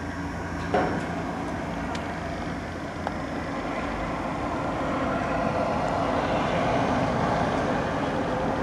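Kone EcoDisc gearless traction lift running in its glass shaft, a steady mechanical rumble that grows louder partway through as the car and counterweight travel, with a single click about a second in.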